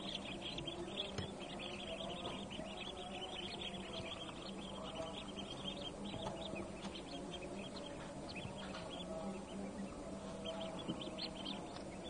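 A crowd of newly hatched Pekin and hybrid ducklings peeping continuously, many short high peeps overlapping, over a steady low hum.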